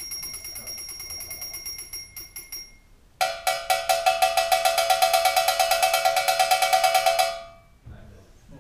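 Electronic percussive sounds triggered by an Arduino pressure-sensor controller: a high, ringing stroke repeated rapidly, then about three seconds in a much louder, lower metallic stroke repeated about eight times a second, which stops near the end. The repeat rate follows how hard the sensor is pressed.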